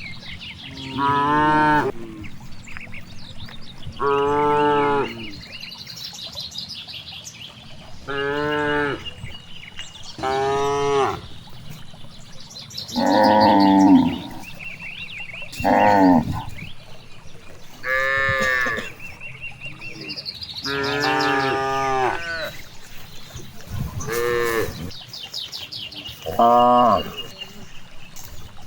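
Cattle mooing over and over, about ten moos each lasting around a second, one every two to three seconds. Faint bird chirps run between them.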